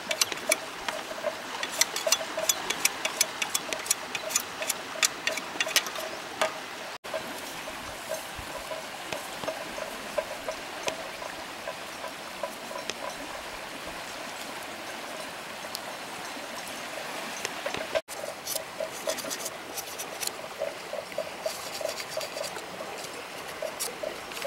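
River water trickling and flowing, with a repeated chirping pulse over it and bursts of sharp clicks in the first few seconds and again near the end.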